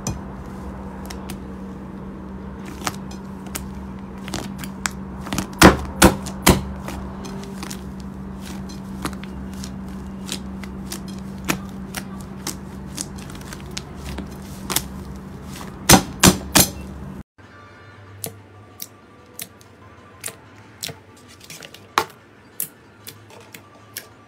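Slime being kneaded and squeezed by hand, with sharp pops and clicks as trapped air bursts through it, the loudest in clusters about six and sixteen seconds in, over a steady low hum. About seventeen seconds in the sound cuts to a quieter background with softer, scattered pops as fingers press into a glossy slime.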